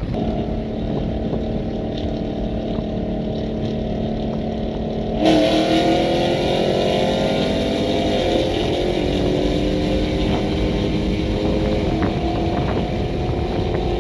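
Hemi V8 engines of muscle cars in a highway roll race: a steady cruising drone, then about five seconds in they go to full throttle and the pitch climbs, falling back at an upshift about three seconds later and again near the end before climbing once more.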